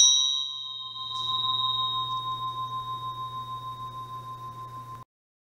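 A bright bell-like chime: a sharp strike, then a ringing tone that swells again about a second in and pulses as it slowly fades, over a low steady hum, cutting off suddenly near the end.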